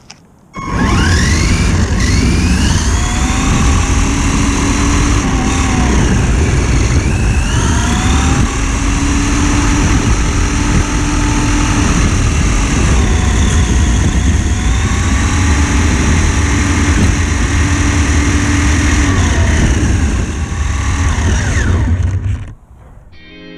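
Electric motor and drivetrain whine of a 1/18-scale Haiboxing Ratchet RC car. The whine rises and falls repeatedly with the throttle over a heavy low rumble. It starts suddenly about half a second in and cuts off shortly before the end.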